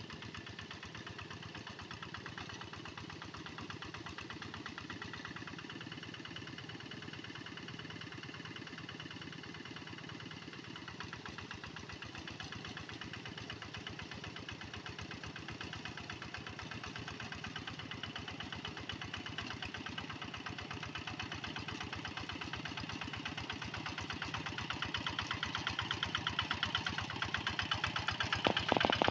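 Kubota walk-behind hand tractor's single-cylinder diesel engine running steadily under load while ploughing, with a rapid, even chugging beat. It grows louder over the last few seconds as the tractor comes closer.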